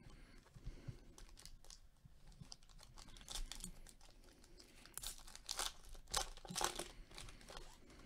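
Trading card pack wrapper torn open and crinkled by gloved hands: irregular short rustles, loudest in the second half.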